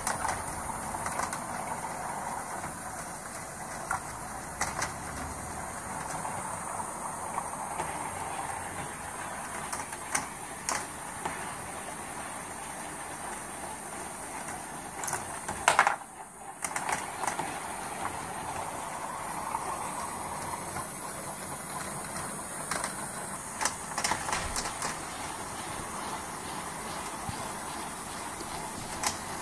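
Bandai Spacewarp rolling-ball coaster running: steel balls rolling along the plastic rails and circling in the plastic funnels, a steady rolling noise with scattered sharp clicks as balls strike the track and one another, and a louder clatter just past halfway.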